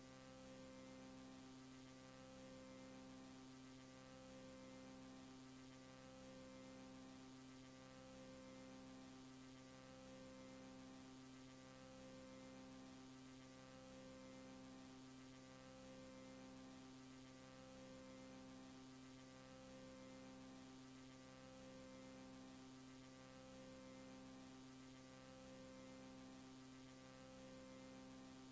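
Near silence on a VHS tape's audio track: a faint steady electrical hum, with part of it pulsing slowly about once every second and a half.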